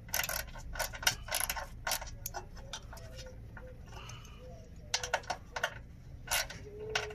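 Hand ratchet clicking in quick runs as a bracket bolt is tightened, with a pause in the middle before more short runs of clicks.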